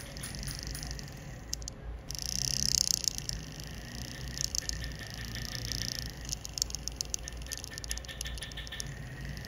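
Small, irregular clicks and scratches of a jeweler's steel tool working the surface of a gold pendant, with a louder stretch of scraping about two to three seconds in.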